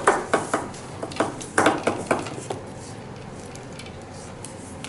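Small hard plastic toy pieces clicking and knocking together and against the table, in a quick run of taps over the first two and a half seconds, then only a few faint clicks.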